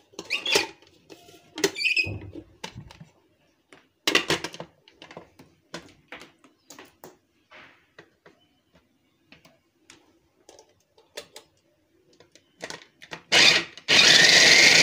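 Plastic clicks and knocks as onion pieces go into an electric mini chopper's bowl and its motor top is fitted on. Near the end the chopper's motor runs in a short pulse, then steadily and loudly, mincing the onion.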